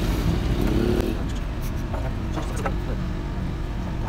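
A vehicle engine idling with a steady low rumble, over which a few light metallic clicks come from gearbox parts being handled between about one and three seconds in.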